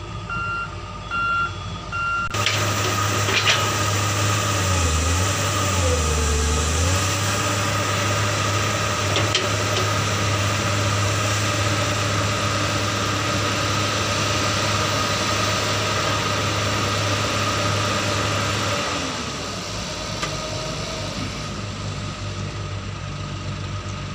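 A few electronic reversing beeps, then a Mitsubishi Canter dump truck's diesel engine running steadily as its hydraulic hoist tips the body and the soil load slides out. The engine sound drops to a lower level about three quarters of the way through.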